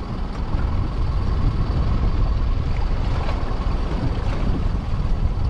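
Steady low rumble of a small open boat's motor running at sea, with water noise around the hull.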